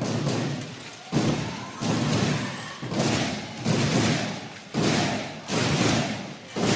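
Handball arena crowd chanting and beating out a repeating rhythm: pairs of loud thuds about two-thirds of a second apart, coming round roughly every two seconds, over the fans' steady noise.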